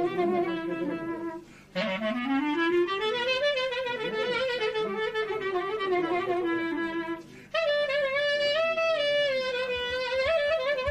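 Solo clarinet playing an improvised taksim in three phrases, with short breaks at about one and a half and seven and a half seconds. The middle phrase opens with a long, slow upward slide of about two seconds, and the held notes are ornamented with quick wavering turns.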